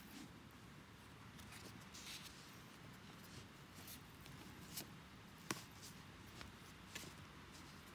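Faint rustling and light ticks of a stack of baseball trading cards being thumbed through, each card slid off the top of the stack in turn, with a sharper tick about five and a half seconds in.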